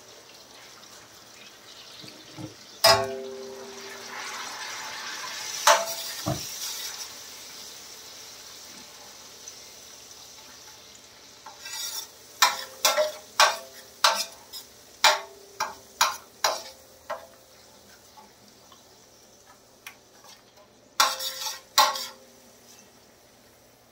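Perforated metal spatula clinking and scraping against a steel tawa as tomatoes are mashed in the spiced sauce, with a sizzle from the hot liquid. A few strikes come early, then a quick run of about a dozen clinks around the middle and a short cluster near the end.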